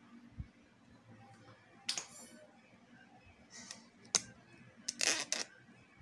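A few separate sharp metal clicks and knocks. One about two seconds in rings briefly, another comes about four seconds in, and a short scraping rustle follows near the end. They come from tools working the steering head bearing race out of a motorcycle frame.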